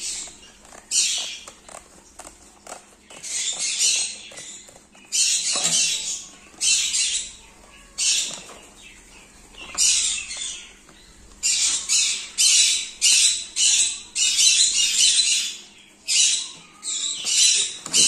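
Conures squawking again and again in short, harsh bursts. Under them comes the handling of a paper envelope being cut open with scissors and unfolded, with soft snips and rustles.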